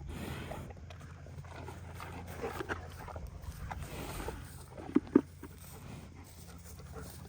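Animal sounds over a steady low hum, with two short sharp sounds in quick succession about five seconds in.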